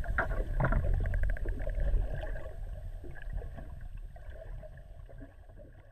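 Underwater sound around feeding common dolphins: a rapid train of echolocation clicks about a second in, over a low rumble of moving water, growing fainter toward the end.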